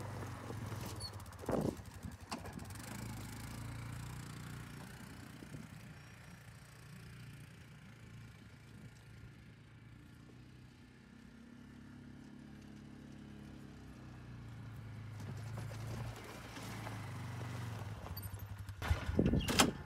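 A side-by-side UTV's engine running as it drives off, fading with distance and growing louder again as it comes back. Sharp metal clatters about a second and a half in and a loud burst of clattering near the end, as the wheels cross the steel-gate cattle guard.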